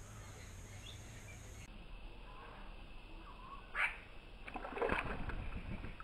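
A small bird bathing in a shallow stream pool, with a short splash about four seconds in and a louder flurry of splashing about a second later. Faint bird calls come before them.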